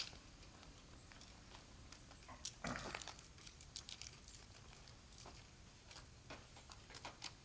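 Faint scattered clicks and rustles of something being handled, with one louder rustling knock about two and a half seconds in.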